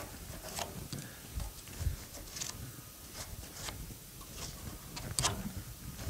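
A stick scraping and knocking in the sawdust chute and grates under a band sawmill, poking out packed sawdust, with scattered scrapes and taps and a sharper knock about five seconds in. The blade is switched off.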